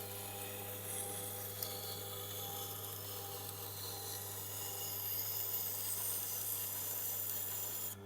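A knife blade being ground on a Tormek T8's stone, graded to about 1000 grit: a steady rasping hiss of steel on the wheel over the low hum of the grinder's motor, raising a burr on the edge. The grinding hiss stops abruptly at the end.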